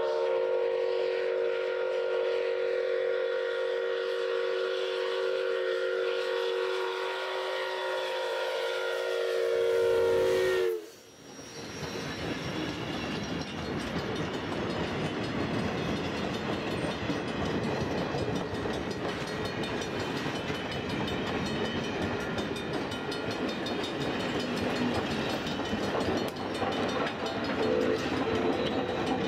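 Steam locomotive's chime whistle sounding a held chord of several notes for about ten seconds, its pitch dipping just before it cuts off sharply. Then the train's wheels roll past on the rails with a steady rumble and clatter as the cars and cabooses go by.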